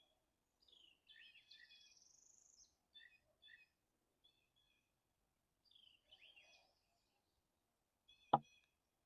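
Songbirds calling faintly with repeated short high chirps and a buzzy rising trill, and a single sharp click about eight seconds in.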